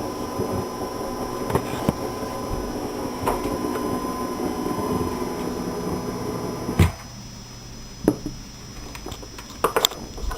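Unwanted electrical background noise from a Focusrite Scarlett 2i2 audio interface playing through monitor speakers: a steady hiss with a hum and a high whine. It cuts off with a sharp click about seven seconds in, and a few small handling clicks follow.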